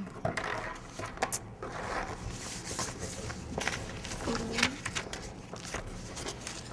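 Pencils scratching on paper, with light taps and paper rustles on a tabletop as children write.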